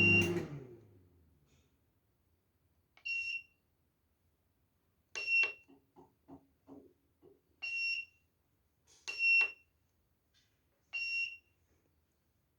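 Microwave oven running with a low hum that stops as its control board's buzzer beeps to end the timed cycle; the hum dies away over about a second. Then five short high beeps a couple of seconds apart, with a few soft clicks between the second and third.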